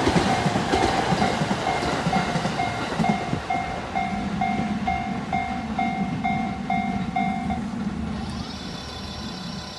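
Japanese level crossing alarm ringing a steady electronic ding, about two strikes a second, over the clatter and rumble of a passing train. The alarm stops about three quarters of the way through and the train noise fades away.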